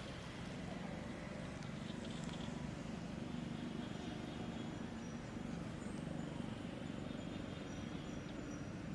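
Steady low motor hum with faint, thin high-pitched chirps above it.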